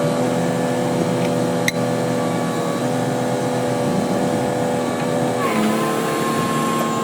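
Movax 80VA excavator-mounted vibratory pile driver running steadily while driving sheet piles: a loud, even machine hum with several held tones. The pitch drops slightly about five and a half seconds in.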